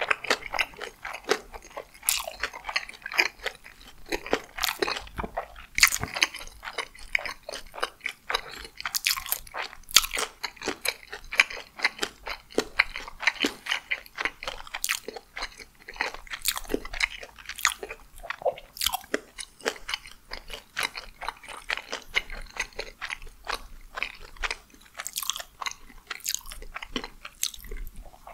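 Close-miked chewing of food, with many short, sharp, irregular mouth clicks, several a second.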